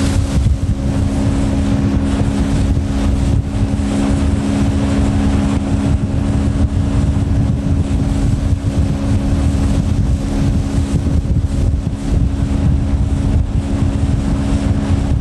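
Motorboat engine running steadily at speed while towing a water skier, an even drone with no change in pitch. Heavy wind rumble buffets the microphone.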